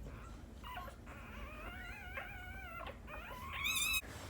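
Newborn American Bully puppy whimpering in high, wavering squeals that grow louder toward the end, then cut off suddenly.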